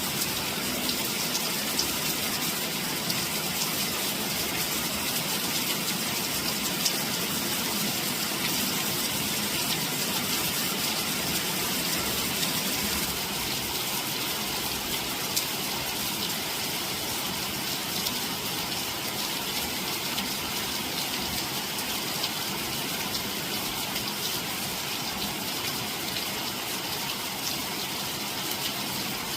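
Steady rain falling, an even hiss with occasional sharper drop hits standing out.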